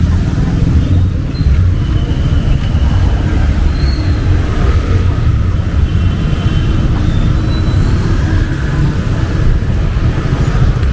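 Busy city street traffic: a steady low rumble of motorbikes and cars passing close by, with a small box truck going past near the end.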